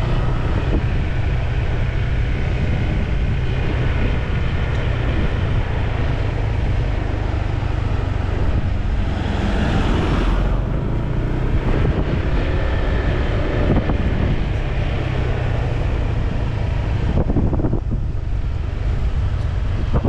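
Wind buffeting the microphone and road noise from a Honda PCX 150 scooter underway, its small single-cylinder engine running steadily underneath. A louder rush comes about ten seconds in.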